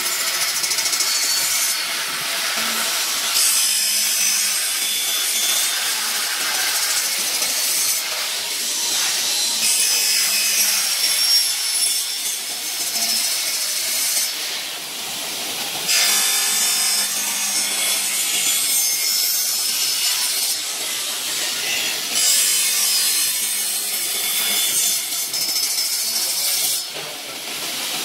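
Horizontal disc saw blade on a CNC profile machining center's spindle cutting an aluminium extrusion: a loud, steady, high-pitched cutting hiss that changes in level every few seconds as the cut goes on.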